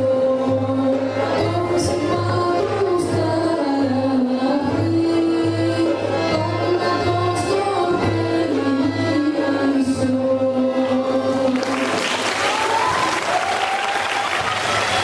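Live Greek folk song, a sung melody over instrumental accompaniment with a steady low pulse. About twelve seconds in, audience applause breaks out over the closing music.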